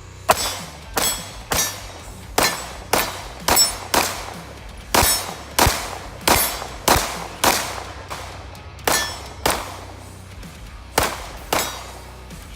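CZ P-10 C 9mm pistol firing about sixteen shots in strings of roughly two a second, with short pauses between strings. Each shot is a sharp report with a brief ringing tail.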